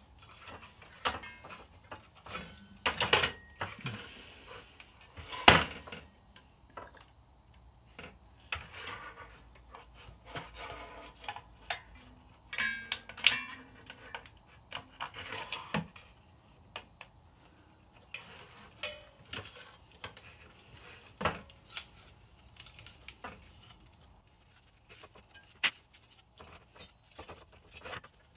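Scattered small clicks, taps and light clatter of hands handling a graphics card: its plastic fan shroud, aluminium heatsink and fan plug being worked with fingers and tweezers. The sharpest knock comes about five seconds in.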